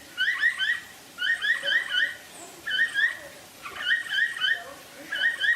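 Capybara making short, high chirping calls in quick runs of three or four, about one run a second.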